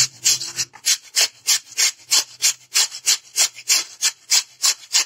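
Raw potato being grated on a metal box grater: quick, even rasping strokes, about four a second.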